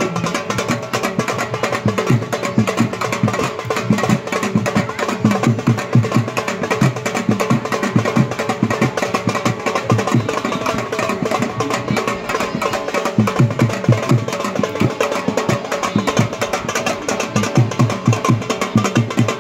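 Folk dance music: a barrel drum played by hand beating a fast, steady rhythm under a sustained melody line.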